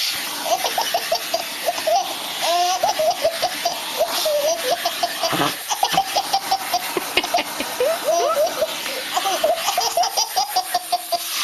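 A baby laughing in repeated high-pitched, hiccuping bursts. Under the laughter is a steady hiss from a vacuum cleaner running.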